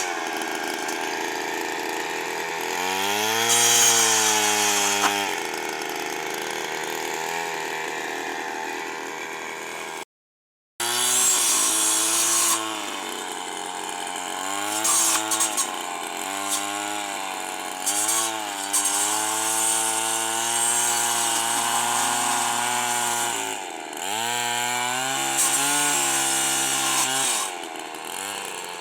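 Stihl FS 160 two-stroke brushcutter engine revving up and down again and again as its chainsaw-toothed disc cuts through thorny branches. The sound drops out for a moment about ten seconds in.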